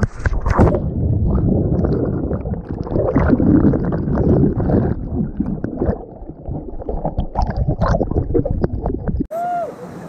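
Water rushing and churning over a waterproof action camera as it slides down a rock waterslide and goes under, heard as a loud, muffled rumble with gurgling and bubbling. About nine seconds in it cuts to people's voices.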